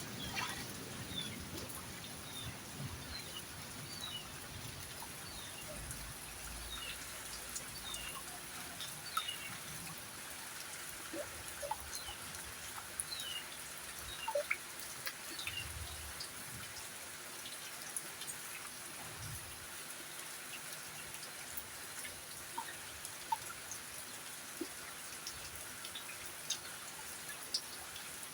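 Rain falling steadily with scattered drips, and short high bird chirps now and then.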